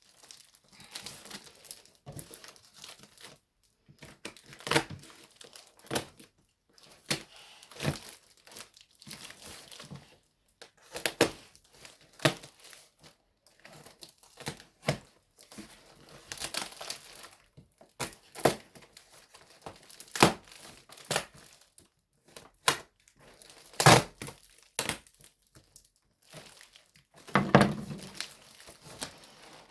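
Packaging being crinkled and torn as a large delivery box is unpacked, in irregular rustling bursts, with a couple of louder knocks near the end.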